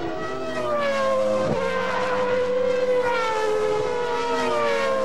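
Formula 1 car's Renault V10 engine at high revs as the car passes at speed. Its high note slides down a little and then holds steady, with a brief break about a second and a half in.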